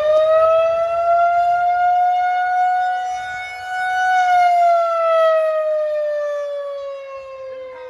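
Federal Signal 2001-130 rotating outdoor warning siren sounding the wailing attack signal rather than the steady alert. Its single tone rises over about the first second, holds, then slides slowly down, while the loudness swells and dips as the horn rotates.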